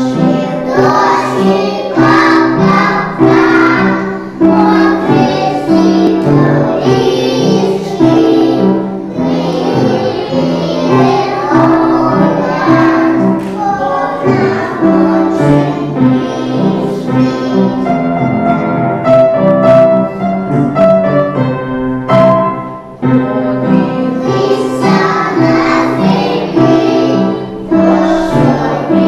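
A group of small children singing a song about rain together over a musical accompaniment.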